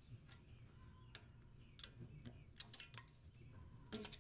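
Faint, irregular clicks and light metal taps of a flathead screwdriver prying at a rear brake caliper, with a slightly louder click near the end.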